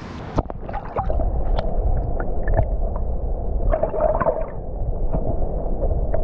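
A sharp knock just under half a second in. Then comes the muffled, low water noise of a camera microphone held under the river surface, with gurgling and scattered small clicks.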